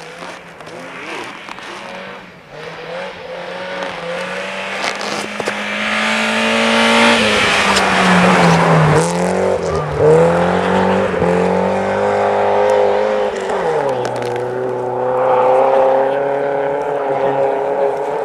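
Rally car engine at high revs as the car comes close on a snow stage, growing louder to its loudest about halfway through, its note dipping and climbing again with throttle and gear changes. About three quarters of the way through the note drops to a lower, steady engine sound.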